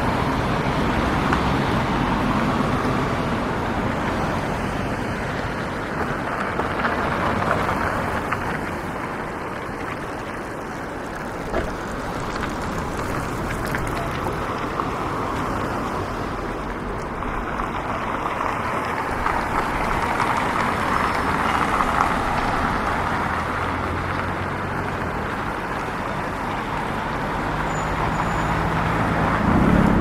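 Street traffic: cars passing one after another in a steady wash of tyre and engine noise that swells and fades several times. A low engine hum rises near the end.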